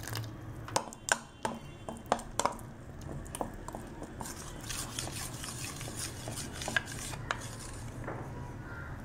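Metal spoon stirring flour-and-water batter in a stainless steel bowl, clinking sharply against the bowl several times in the first couple of seconds, then scraping and swishing through the thickening batter with occasional clinks.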